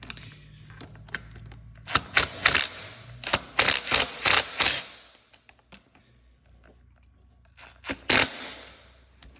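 Cordless impact driver hammering in short rattling bursts while undoing bolts on a dirt bike's front end: a run of bursts about two seconds in, then another pair near the end.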